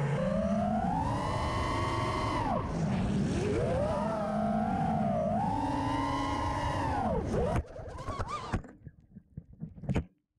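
Small FPV drone's electric motors and propellers whining, the pitch rising and falling with the throttle in two long swells. The whine cuts off about seven and a half seconds in, leaving a few scattered knocks and rustles.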